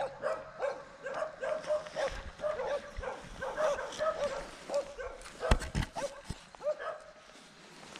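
Short animal calls, dog-like, repeating about three times a second and stopping about seven seconds in. A single low thump of handling noise comes about five and a half seconds in.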